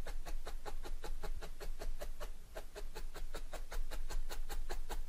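Felting needle jabbing repeatedly through wool roving into a foam mat, a quick even series of soft pokes at about five or six a second.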